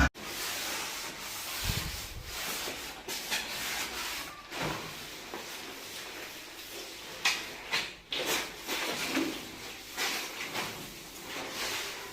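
Irregular scraping and rubbing strokes on a hard surface, with a few sharper, louder scrapes in the second half, in the manner of tile-setting hand work.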